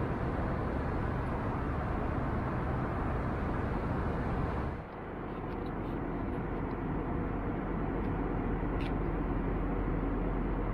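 Steady cabin noise of an Airbus A321 airliner in cruise: an even rush of airflow over engine rumble. About five seconds in the sound drops briefly and comes back deeper, with more low rumble and less hiss.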